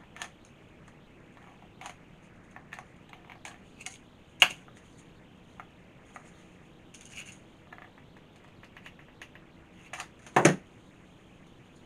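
Scattered light clicks and taps of small craft pieces being handled on a work table, with a sharp knock about four seconds in and a louder short clatter near the end.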